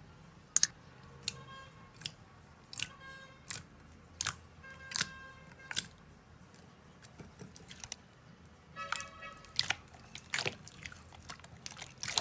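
Clear jelly slime being pressed and squeezed by hand: a string of sharp wet clicks and pops, with about four short squeaky squelches.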